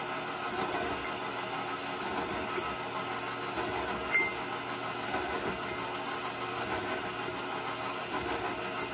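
KitchenAid bowl-lift stand mixer's motor running steadily, its flat beater turning in an empty stainless-steel bowl. A light metallic tick comes every second and a half or so, the loudest about four seconds in, as the beater clips a dime on the bowl's bottom: the dime test of beater-to-bowl clearance.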